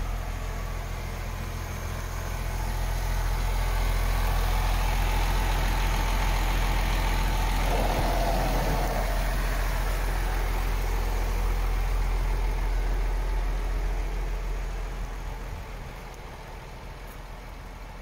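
Diesel engine of a MAN TGS 26.460 truck idling steadily, a 12.4-litre inline six-cylinder. It grows louder a couple of seconds in and drops back near the end.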